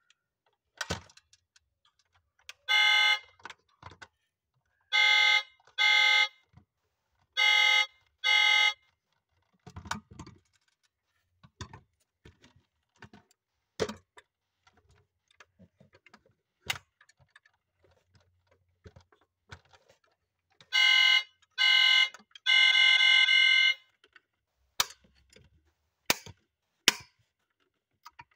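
A die-cast toy pickup's electronic horn sound from its small built-in speaker: short honks, mostly in pairs, and one longer honk about two-thirds of the way through. Sharp plastic clicks from handling the model fall between them.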